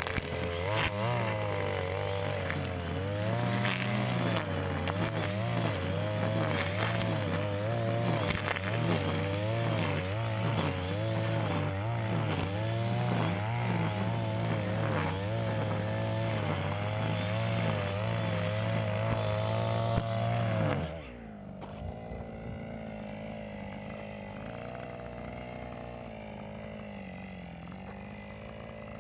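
Petrol brush cutter engine running at high revs with the speed rising and falling, then dropping suddenly to a quieter idle about three-quarters of the way through as the throttle is released.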